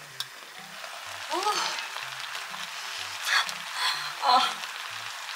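Steady sizzling hiss of food cooking on the stove, with two short, louder clatters about three seconds in and again a second later.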